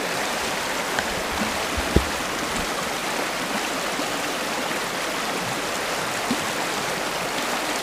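River water rushing steadily over shallow riffles, an even unbroken wash, with one light knock about two seconds in.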